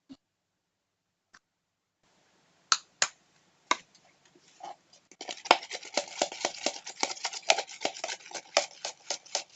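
A spoon stirring a sticky glue and shampoo mixture in a plastic container, clicking and scraping against the sides. A few separate clicks come first, then from about halfway through the stirring turns into a fast, continuous run of clicks and scrapes.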